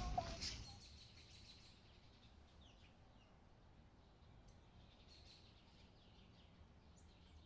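Outdoor park ambience fading away within the first second to near silence, with a few faint, short, high bird chirps scattered through it.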